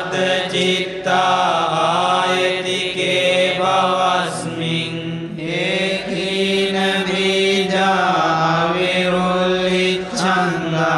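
Pirith chanting: Pali protective verses of the Buddha recited in long, drawn-out tones that glide from note to note, over a steady low held pitch.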